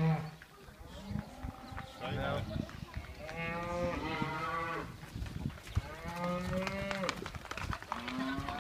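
Cattle mooing, several long calls of about a second each following one another, from a herd just turned out of its winter barn onto pasture.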